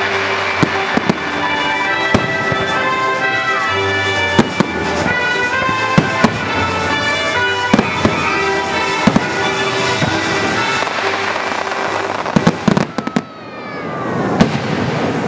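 Fireworks bursting with sharp bangs at irregular intervals over loud music, with a rapid cluster of cracks near the end.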